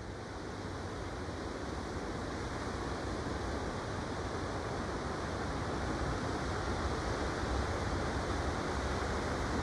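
Surf breaking on a sandy beach: a steady wash of waves that slowly grows louder.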